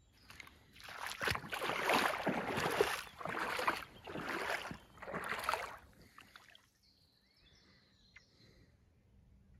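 Shallow lake water sloshing and splashing in several surges, dying away about six seconds in.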